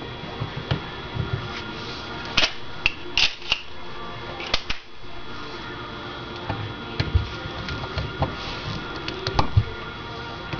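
Scattered small metallic clicks and taps as a screwdriver works a screw on a Weber DGV carburetor and the carburetor body is handled, with a cluster of sharper clicks a couple of seconds in and a few more near the end.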